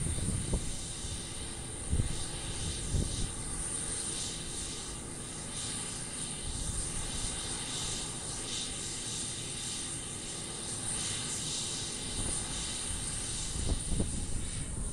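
Embraer KC-390's twin turbofan jet engines running with a steady noise and a constant high whine, with a few brief low bumps near the start and the end.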